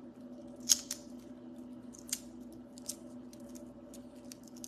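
A few scattered light clicks and taps, the sharpest about two thirds of a second in, over a steady low hum.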